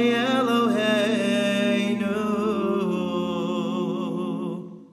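Cantor singing a wavering melismatic line over sustained low harmony, which shifts to a new chord about two seconds in. The final chord fades away near the end, closing the piece.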